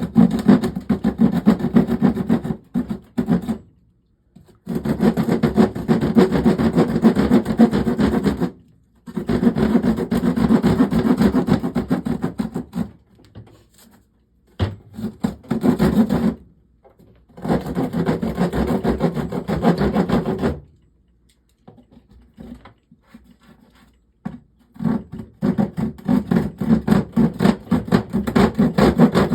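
Leatherman multitool saw blade sawing through a wall panel in quick back-and-forth strokes, in several runs of a few seconds each with short pauses between them, the longest pause near the middle.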